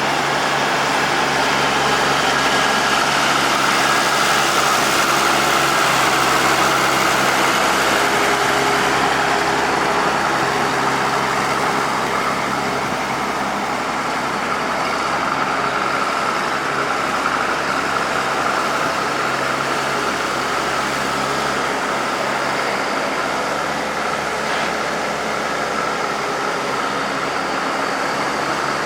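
Oliver 88WT tractor-backhoe engine running steadily at idle.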